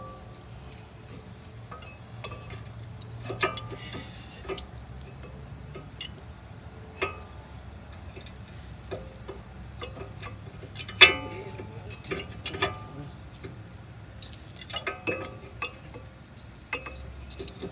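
Irregular metallic clicks and knocks of new brake pads and their clips being handled and pushed into a car's front brake caliper bracket, with one louder knock about eleven seconds in.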